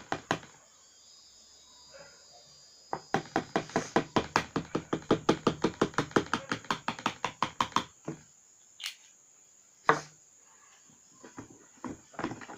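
A quick, even run of sharp taps or clicks, several a second, for about five seconds, made on purpose as a noise before an ingredient goes into the slime; a single louder knock follows near the end.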